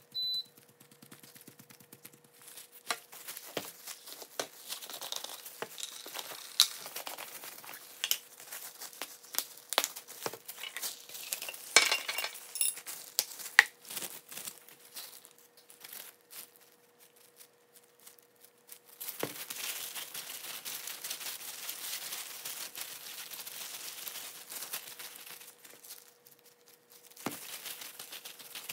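Clear plastic food-prep gloves crinkling and rustling as gloved hands handle raw chicken pieces, with scattered taps and clinks of seasoning jars and their caps. About two-thirds through the rustling turns into a longer steady stretch. A faint steady hum runs underneath.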